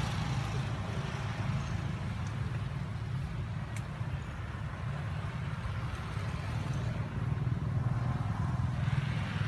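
Steady low rumbling outdoor background noise, with a single faint click about four seconds in.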